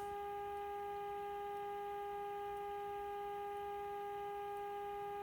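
Steady, buzzy audio tone of a modulated 455 kHz test signal, played through a 1951 RCA Victor Nipper II radio as its IF cans are peaked during alignment. The pitch and level hold even, a sound the repairer calls very annoying.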